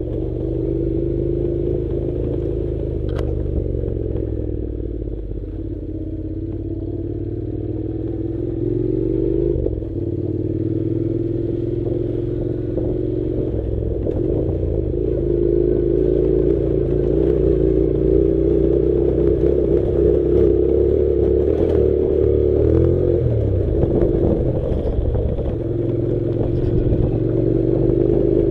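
Honda NC700's parallel-twin engine running while riding on a dirt track. Its pitch rises and falls with the throttle and drops abruptly about ten seconds in, with clattering from the rough surface.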